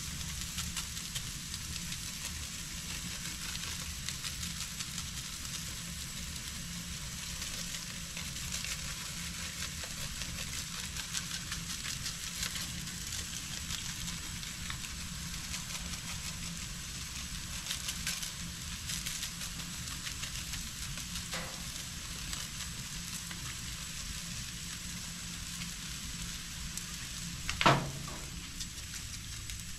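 Black drum fillets on oiled foil and zucchini sizzling steadily on a hot gas grill, with fine crackles. A single sharp knock sounds near the end.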